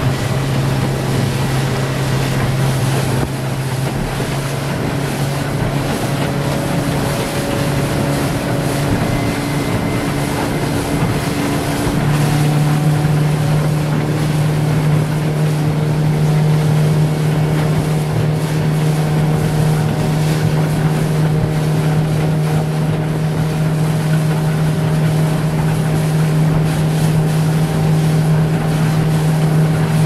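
A small motorboat's engine running steadily under way, with wind buffeting the microphone and water rushing past the hull. About twelve seconds in the engine note steps up a little and gets slightly louder.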